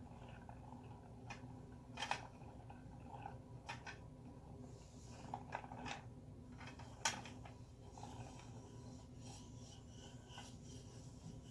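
Hand-cranked plastic yarn ball winder turning as yarn winds onto its spindle: faint rubbing with scattered light clicks and taps, the sharpest about seven seconds in.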